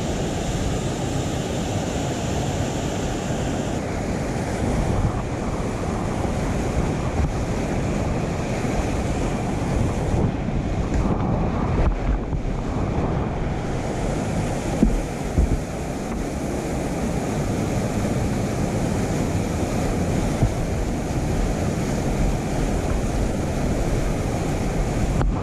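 Whitewater rapids heard from a kayak on a helmet-mounted GoPro: a dense, steady rush of churning water, with splashes and wind buffeting on the microphone.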